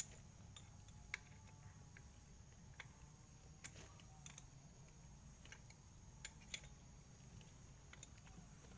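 Near silence: faint room tone with a thin high steady tone and a few scattered light clicks.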